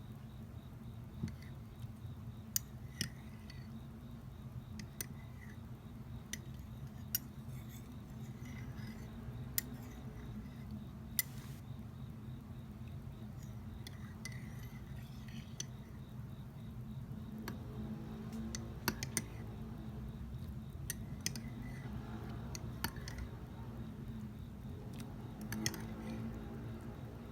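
Close-miked eating of homemade grapefruit preserve: scattered sharp clicks of a utensil against glass and soft chewing, over a steady low hum.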